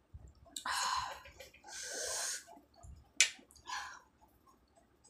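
A person slurping Maggi instant noodles off a fork: two long airy slurps in the first half, then a sharp click and a shorter slurp a little past three seconds in.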